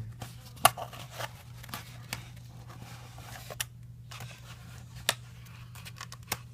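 Cardboard pieces of a VR cardboard viewer being handled and fitted together: scattered sharp taps and clicks with light cardboard rustling, over a steady low hum.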